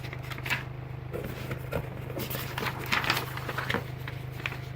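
Paper and cardboard sneaker packaging rustling and crinkling as it is handled, in a series of short irregular crackles, over a steady low hum.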